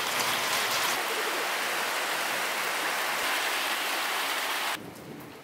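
Heavy rain falling, a steady hiss, which cuts off abruptly near the end and leaves a much fainter hiss.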